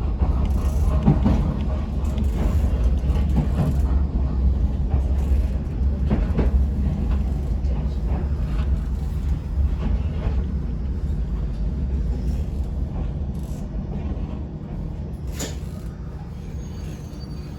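Electric commuter train running on rails, heard from inside, a low rumble that slowly dies away as the train brakes into a station. A single sharp click sounds near the end.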